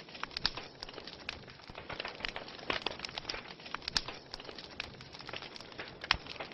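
Wood logs burning, crackling with irregular sharp pops over a soft hiss; the loudest pops come about 4 and 6 seconds in.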